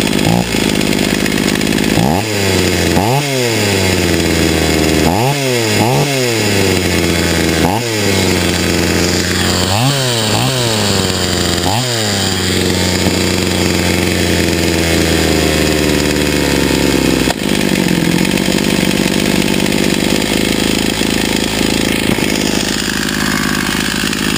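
Stihl 028 two-stroke chainsaw running with its bar and chain off, the throttle blipped about eight times in quick rising-and-falling revs, then running steadily. It is being test-run after a carburettor rebuild and clutch cleaning.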